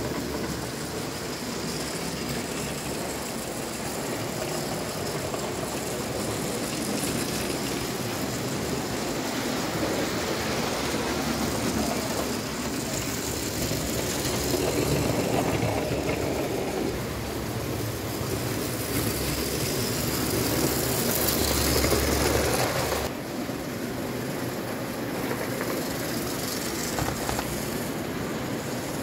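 JEP 1938 Nord autorail, an O-gauge tinplate electric model railcar, running along its tinplate track: a continuous mechanical running noise. It grows louder around the middle, is loudest just before it drops back abruptly about three-quarters of the way through, then carries on more quietly.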